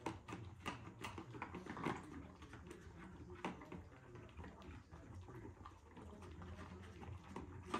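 Goldendoodle puppies licking and lapping soft-serve ice cream from plastic bowls and a cup: a run of quiet, irregular wet smacks and clicks.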